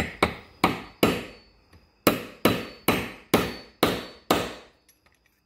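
A claw hammer strikes a steel priming rod standing in a .500 S&W Magnum case, pressing a primer into its pocket. There are about ten sharp taps, each ringing briefly: four quick ones, a pause of about a second, then six more at about two a second.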